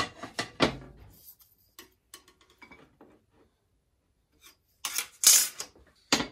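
Metal handling on a table saw's steel top: a quick run of clunks in the first second as the rip fence is pushed into position, light ticks, then a loud scrape about five seconds in as a steel rule or the fence slides across the table, and a sharp clunk near the end.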